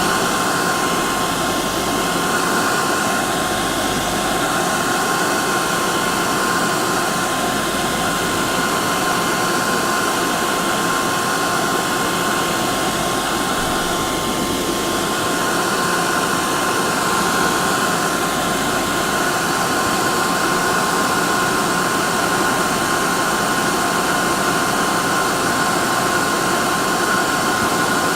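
Hair dryer running steadily: a constant blowing rush with a steady high whine from its motor and fan.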